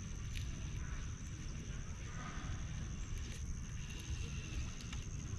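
Outdoor background: a steady low rumble, a thin continuous high-pitched whine, and a few faint clicks.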